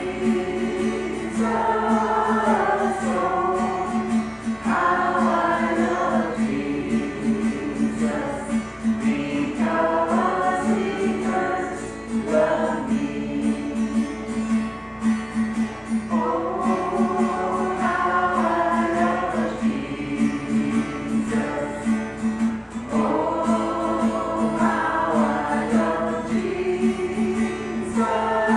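Gospel choir singing a worship song in phrases of a few seconds each, with instrumental accompaniment and a steady low note under it.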